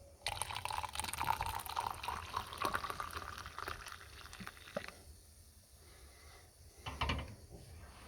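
Water pouring into a container for about five seconds, the pitch rising slightly as it fills, then a brief knock or rattle near the end.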